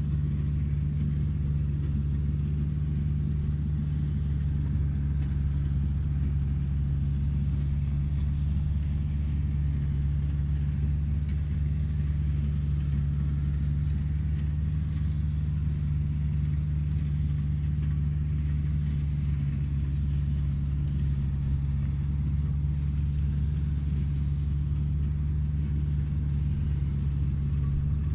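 Tractor engine running steadily, a constant low drone that does not change in speed, with a faint high whine above it.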